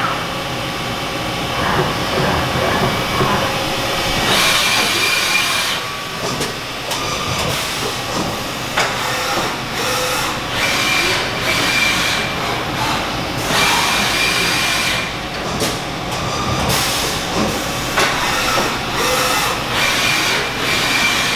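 Haas UMC-750SS five-axis CNC machining center running, with stretches of hissing and a high steady whine that comes and goes several times.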